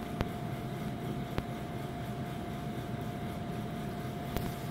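Steady hum of a building's air conditioning with one constant tone, broken by a few faint clicks.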